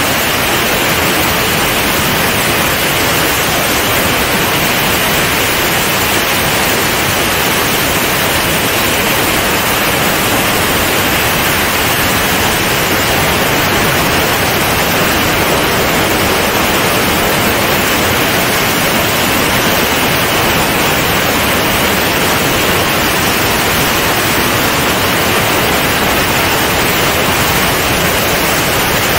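Steady, loud rush of airflow over a camera mounted outside a C42 ultralight in flight: an even hiss with no engine tone standing out.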